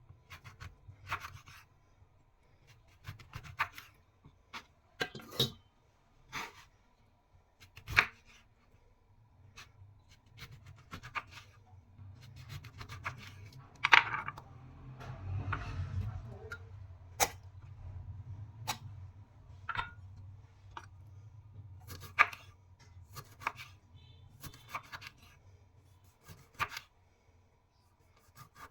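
A kitchen knife cutting food on a cutting board, each cut landing as a sharp knock on the board, irregularly about once every second or two. Between the cuts there is rubbing and handling noise.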